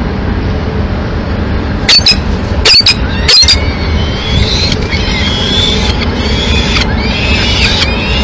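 Steady city traffic rumble, with three sharp knocks between about two and three and a half seconds in. From about four seconds in, peregrine falcon chicks give repeated high, squealing begging calls that rise and fall as the adult lands at the nest.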